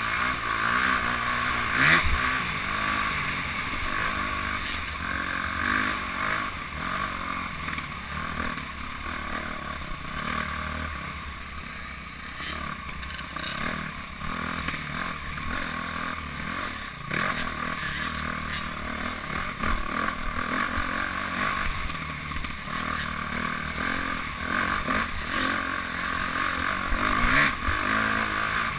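Dirt bike engine running under way, its pitch rising and falling as the throttle opens and closes, with a steady rush of noise over it.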